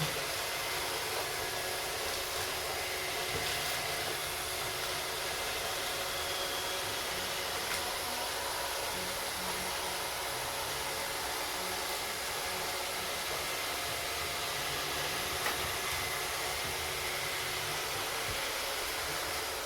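Three iRobot Roomba robot vacuums (a 561, a 620 and a Pro) running together: a steady hissing whir from their vacuum fans and brush motors, with faint motor hum and a few light clicks.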